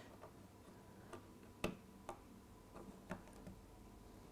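Faint, irregular small clicks of OO-gauge model rail ends being worked into metal fishplates to join a point to a double slip; about seven clicks, the loudest about one and a half seconds in.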